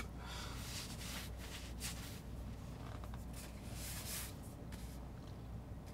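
Quiet room tone inside a car cabin: a low steady hum with faint rustles and light handling noises.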